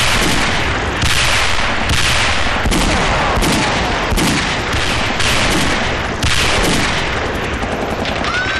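Film soundtrack of battle: dense gunfire and explosions, with a sharp blast about every three-quarters of a second over continuous shooting, each blast trailing off.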